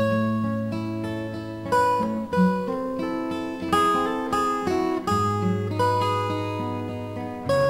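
Instrumental acoustic guitar music: chords and single notes plucked and left to ring, with low bass notes held underneath.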